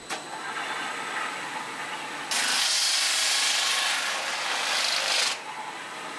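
A large motor-driven circular cutting disc sawing through a PVC pipe: a loud, even hiss of the cut begins a little over two seconds in, lasts about three seconds and stops as the disc lifts clear. A quieter steady machine hum runs before and after the cut.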